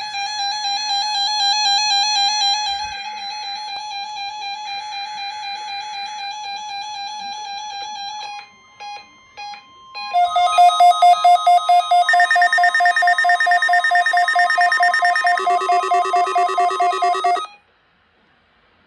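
Weather alert radios sounding during the weekly NOAA Weather Radio test. A warbling electronic alarm tone plays first. After a short break with a few beeps, a louder, rapidly beeping alarm follows, several tones layered over the broadcast's steady warning tone, and it cuts off suddenly near the end.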